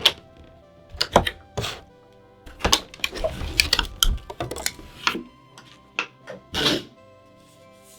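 Hands handling and opening a trading-card premium collection box: an irregular string of sharp taps, clicks and rustling scrapes of cardboard and plastic packaging.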